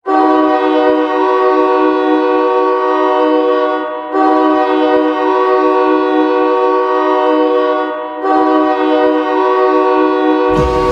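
Ice hockey goal horn, a chord horn sounding several notes at once, blowing three long blasts of about four seconds each. Near the end the goal song's music comes in.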